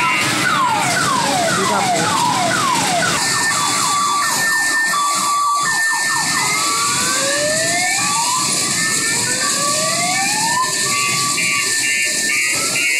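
Electronic siren sound effects from a children's amusement ride's loudspeaker. It starts with rapid falling wails, then from about three seconds in switches to an alternating two-tone beeping with slow rising wails over it, all above a steady hiss.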